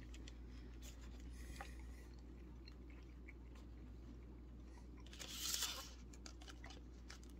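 Faint chewing of a mouthful of teriyaki tuna and rice, small soft clicks over a steady low hum. About five seconds in comes a brief rustle of the cardboard package sleeve being handled.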